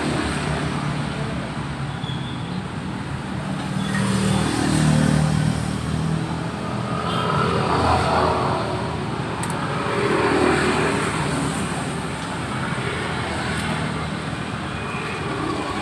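Motor vehicles passing on a road, the engine noise swelling and fading several times, one after another.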